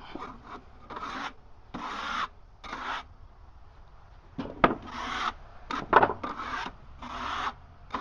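Rough scraping strokes across freshly sawn walnut boards, about ten of them at an uneven pace, with a couple of sharp wooden knocks about halfway through.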